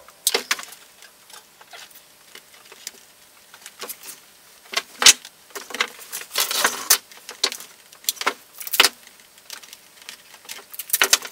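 Irregular clicks, taps and rustles of small parts and cardboard being handled on a wooden workbench, with a longer stretch of rustling about six seconds in.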